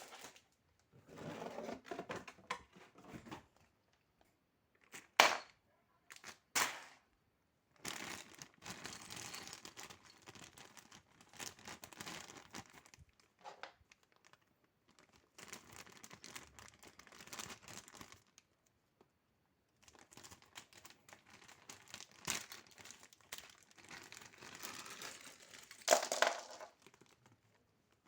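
Packaging crinkling and rustling as it is handled, in irregular bursts with short pauses. There are a couple of sharp clicks a few seconds in and a louder burst near the end.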